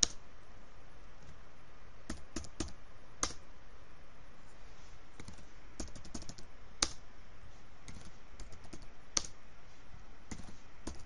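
Laptop keyboard being typed on in irregular short runs of key clicks, with a few sharper, louder key strikes.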